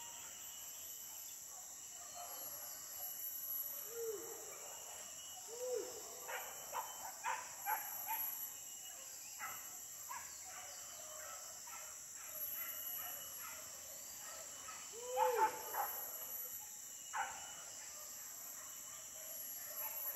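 Hunting dogs barking in short, scattered bursts, loudest about fifteen seconds in, over a steady high drone of insects.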